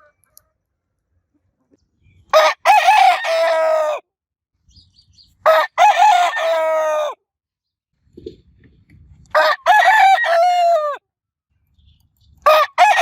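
Rooster crowing four times, roughly every three seconds. Each crow is a short broken opening followed by a long held final note, and the fourth begins near the end.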